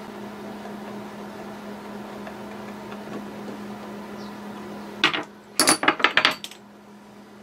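A quick cluster of sharp clinks and clatters from small metal hand tools being picked up and set down on a workbench, about five seconds in. A steady low hum runs underneath.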